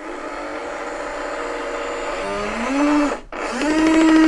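Heng Long M1A2 Abrams RC tank's built-in sound unit playing its simulated engine start-up through its small speaker: a whine that builds and rises over about three seconds, breaks off briefly, then settles into a steady engine hum.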